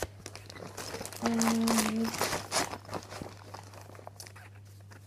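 Paper sheets and a clear plastic project bag rustling and crinkling as they are handled, a run of crackles that dies down after about three seconds. A short steady hum, like a held voice, sounds about a second in.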